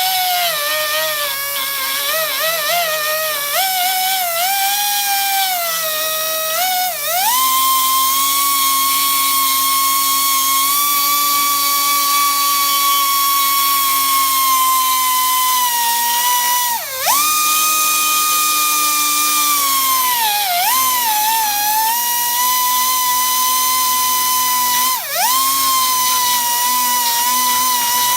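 High-speed rotary tool with a carbide burr grinding out a crack in a metal part ahead of brazing: a loud, steady whine that wavers low for the first few seconds, then rises and holds, sagging briefly in pitch about four times as the burr bites.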